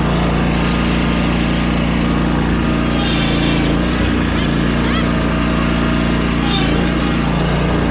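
Riding lawn mower engine running steadily, with a brief dip in pitch about four seconds in.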